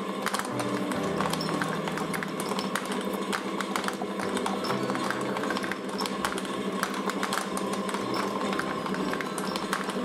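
Rubbery squishy stress balls squeezed and handled, with their mesh netting pulled off, giving irregular clicks over a steady hum and light background music.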